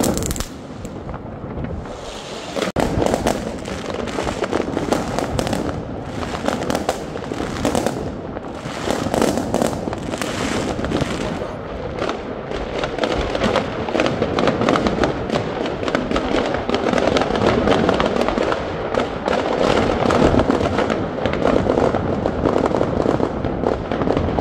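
Many consumer fireworks and firecrackers going off at once: a dense, continuous crackle of rapid bangs, a little quieter for the first couple of seconds.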